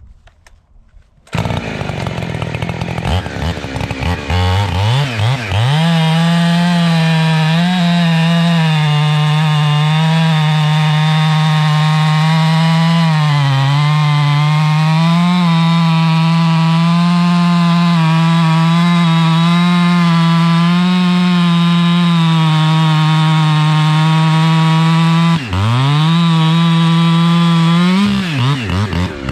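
Two-stroke chainsaw firing up about a second in. Its engine speed climbs over a few seconds and then runs steadily, with two quick dips and pick-ups near the end.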